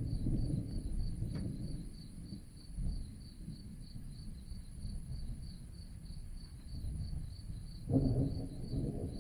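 Crickets chirping in a steady, even run over a continuous low rumble of distant thunder; the rumble swells suddenly near the end.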